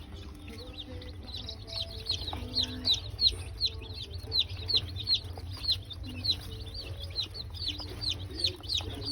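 Many baby chicks peeping: high, short chirps that fall in pitch and overlap, several a second. A steady low hum runs underneath.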